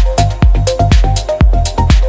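Background electronic music with a steady drum beat, a low bass and a short repeating synth melody.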